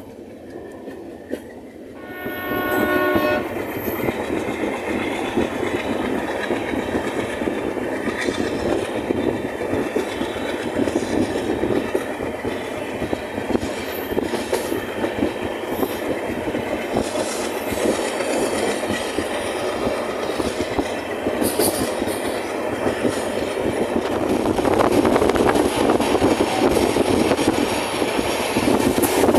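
Train horn sounding once for about a second, about two seconds in. Then the steady rumble and rattle of the coaches' wheels running on the rails, heard at an open coach doorway as the train picks up speed, growing louder near the end.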